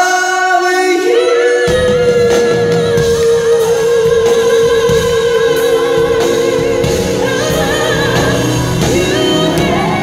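Live singing with band accompaniment: the singers hold one long note with vibrato for several seconds, the band's lower parts coming in about two seconds in.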